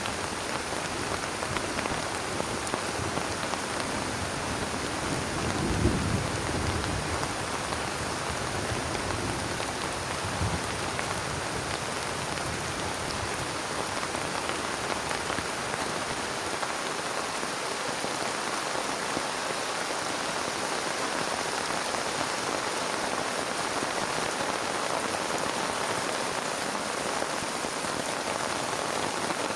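Heavy rain falling steadily, with a low rumble of thunder about six seconds in and a fainter rumble a few seconds later.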